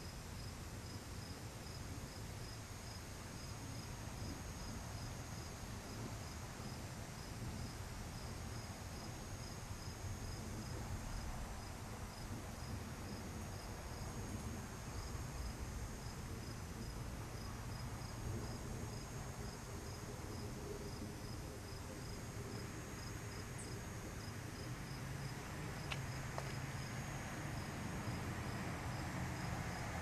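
An insect chirping in the grass: a steady run of high, evenly spaced chirps, a few a second, over a low hum.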